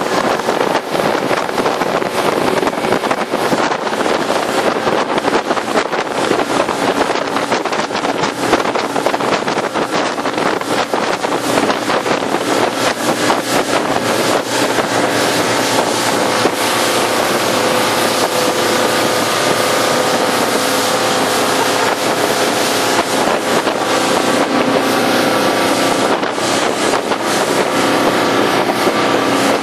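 Loud, steady aircraft engine drone with wind buffeting the microphone; faint steady pitched tones come in about halfway through.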